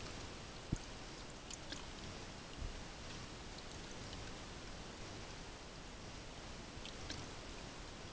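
Steady hiss of background noise with two faint, thin high-pitched tones, a single soft knock a little under a second in, and a few faint clicks.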